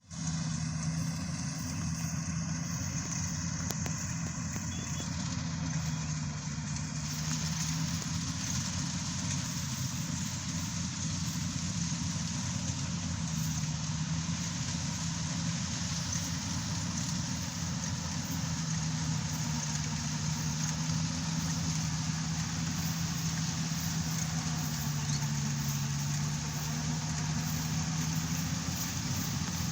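Yanmar YH700 combine harvester's diesel engine and machinery running steadily, with a faint high whine over it for the first several seconds.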